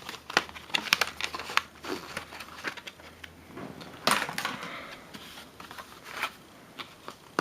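Plastic blister packaging of RAM sticks crackling and clicking as it is handled and pried open. It makes a run of sharp clicks, with a longer crinkle about four seconds in.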